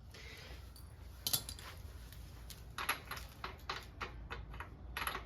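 Light metallic clicks and clinks of hand tools being handled: a sharp click about a second in, a run of quick clicks around three seconds in, and another near the end.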